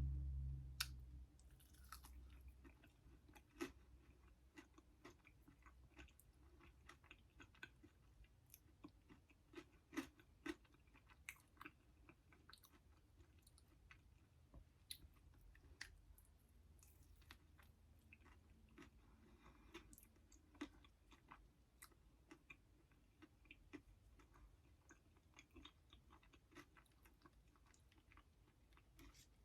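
Faint close-up chewing with scattered small wet mouth clicks, about one or two a second, as fast food is eaten.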